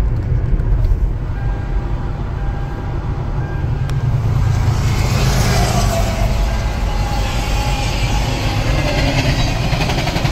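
Road noise inside a moving car's cabin: a steady low rumble of tyres and engine, with a hiss that grows from about halfway through.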